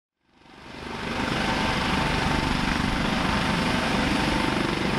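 Navy Panther helicopter running on the ground, fading in over the first second: a steady turbine whine over a fast, even rotor beat.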